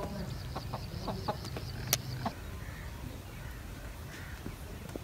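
A hen clucking, with a quick run of high chirps over the first two seconds or so.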